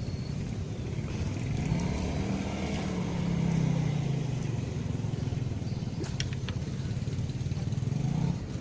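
Engine of a passing motor vehicle running steadily, its pitch rising and then falling a few seconds in.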